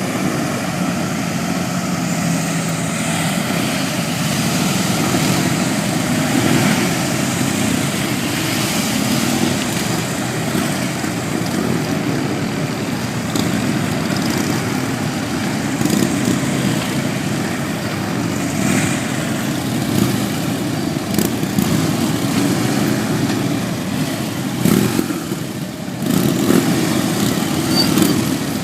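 A group of motorcycles riding off, their engines running steadily with small rises and falls.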